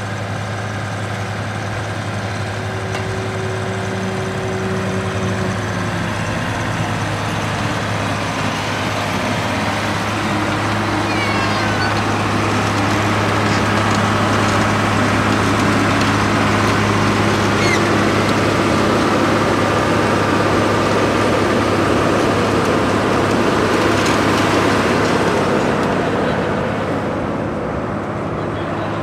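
Diesel engine of a tracked asphalt paver running steadily while the machine lays asphalt. It is louder through the middle, then eases off near the end.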